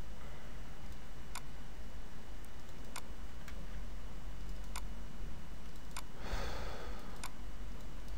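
Computer mouse button clicking, five sharp single clicks spaced one to two seconds apart, over a steady low hum. A brief soft rustle comes between the last two clicks.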